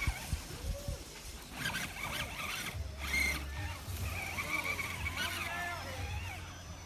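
Electric motor of a radio-controlled rock crawler whining up and down in pitch with the throttle as it climbs, its tyres scrabbling through dry grass and pine needles.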